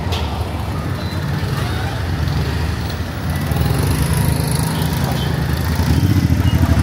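Small motorbike engine running close by, with a steady low rumble that gets louder about halfway through and again near the end, over general street noise.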